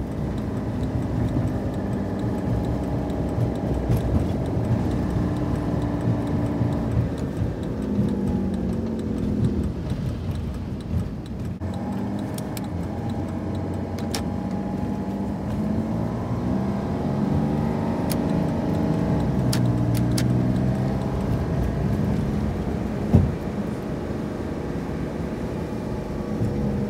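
Cummins diesel pickup engine running while driving, its pitch falling and rising as the truck slows and speeds up, with one sharp knock near the end.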